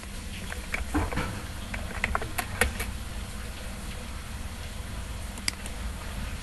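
Computer keyboard keystrokes: a short run of taps from about half a second to nearly three seconds in, then a single click near the end, over a low steady hum.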